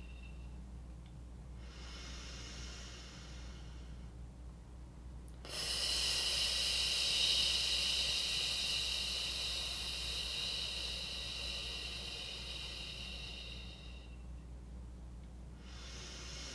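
A person breathing in, then exhaling slowly on a hissing 'fff' F consonant for about eight seconds, fading gradually at the end; another in-breath follows near the end.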